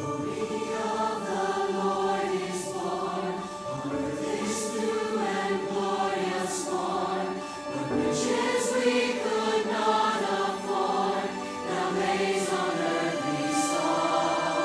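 Choir singing in sustained, overlapping parts.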